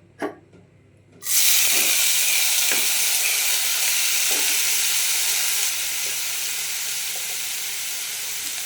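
Potatoes frying in hot oil in a pan: a loud sizzle starts suddenly about a second in as the food meets the oil, then keeps on steadily, easing a little, with a few light knocks of a stirring utensil.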